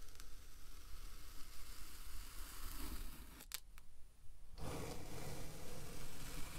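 Kinetic sand being cut: a grainy, crunching scrape as a tool picks and slices through the packed sand. About three and a half seconds in it breaks off with a couple of sharp clicks, then a long steel blade slices through the sand with a louder, fuller crunch.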